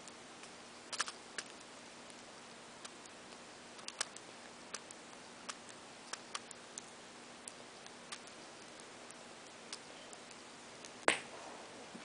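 Budgerigar pecking and cracking seeds from a paper cup: small sharp clicks at irregular intervals, with one louder knock near the end.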